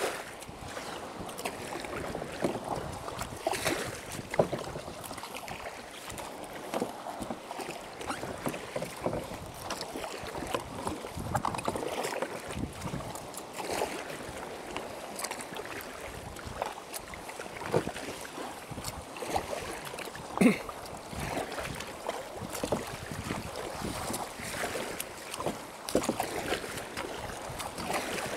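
Kayak paddle blades dipping and splashing through the sea water in irregular strokes, with drips and water lapping at the hull. One splash about twenty seconds in is sharper than the rest.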